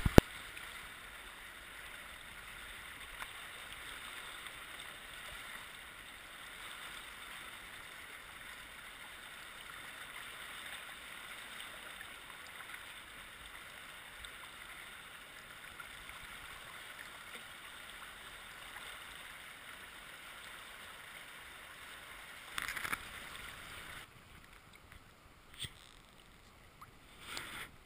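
Steady rush of whitewater rapids, with a louder splash about 23 seconds in. The rapids then give way to quieter flat water, with a couple of short splashes near the end.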